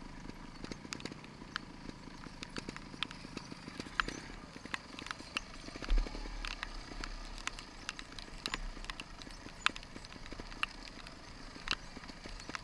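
Trials motorcycle engine puttering at low revs while riding slowly over a wet, rocky trail, with irregular sharp ticks of raindrops hitting the camera housing. A low thump about six seconds in.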